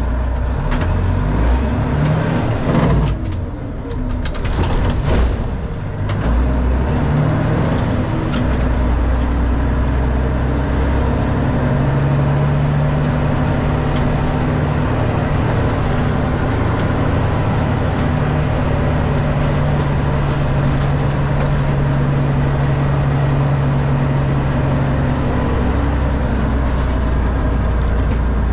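Freightliner FLD semi-truck's diesel engine running, heard from inside the cab. Its pitch shifts a few times in the first several seconds, then it drones steadily.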